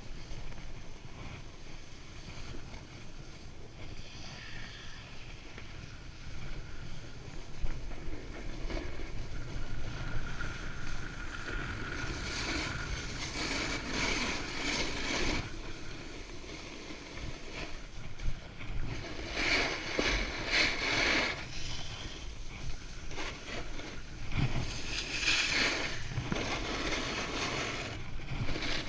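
Wind rumbling on an action camera's microphone while skiing downhill, with the hiss of skis scraping over packed snow that grows louder in three bursts as the skier turns.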